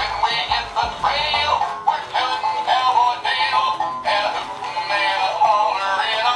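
A cheerful song with high, synthetic-sounding singing over a tune; a low bass part drops out about a second and a half in.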